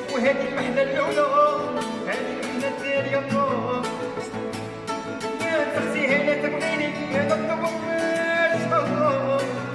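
Background music with a steady beat and a wavering, ornamented melody line.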